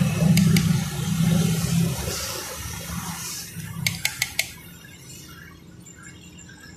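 Spiny-tailed lizard (sanda) frying in hot oil in a small blackened metal pot over a wood fire, the oil sizzling with a steady hiss. A metal spoon clicks against the pot twice near the start and four times in quick succession about four seconds in. A low rumble fades out over the first two seconds.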